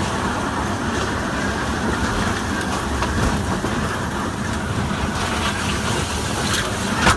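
Storm wind and rain during a severe storm: a loud, steady rushing noise, with a brief louder burst near the end.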